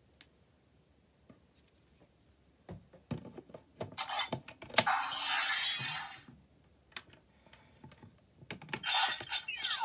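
Sharp plastic clicks and knocks as the Kiwami Joint attachment is fitted onto a CSM Sengoku Driver toy belt and clicked back and forth at its set position. About four seconds in, and again near the end, the belt's small speaker plays short bursts of electronic sound effects.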